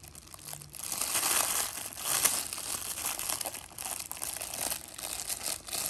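Plastic toy packaging crinkling and rustling as it is handled and pulled open, with one sharp, louder crackle about two seconds in.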